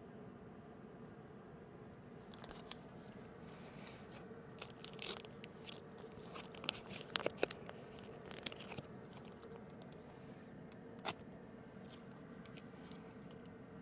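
Someone biting and chewing crunchy food close to the microphone: irregular crunches, loudest about seven to eight and a half seconds in and once more about eleven seconds in.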